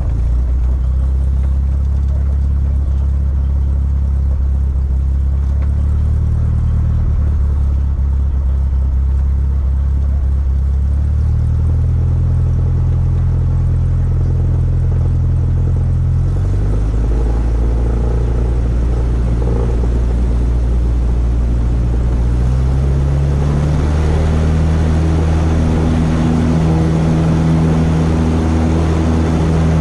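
Cessna 172's piston engine and propeller running steadily, the engine note stepping up in pitch several times as power is added, highest and with the most rush of air over the last several seconds as the plane gathers speed on the runway for takeoff.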